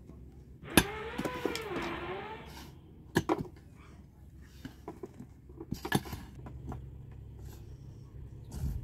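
Sharp knocks, one every two to three seconds. About a second in, a short pitched call rises and falls.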